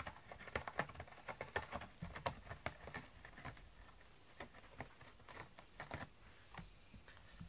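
A cat's claws scratching a corrugated cardboard scratcher: quick raspy strokes, thick in the first few seconds, then fewer and further apart.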